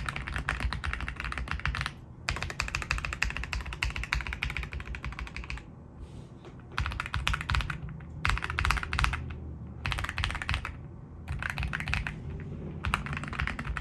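Typing on a Royal Kludge R65 mechanical keyboard with a plastic case, Epomaker Leobog Graywood V3 linear switches and PBT keycaps, its case and PCB dampened with foam and tape. The keys are struck fast in bursts of a few seconds each, broken by short pauses.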